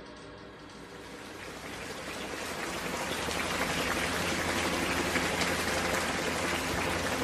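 Rain-like hiss from a background music track, swelling up over the first three seconds and then holding steady, with low sustained tones underneath.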